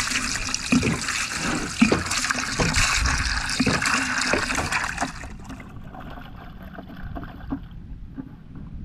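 Water splashing and trickling, busy with small splashes for about five seconds, then dropping to a fainter patter.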